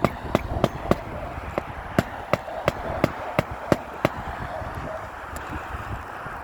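Hammer blows driving roofing nails through shingles, a quick even run of sharp strikes at about three a second that stops about four seconds in, followed by a few scattered lighter knocks.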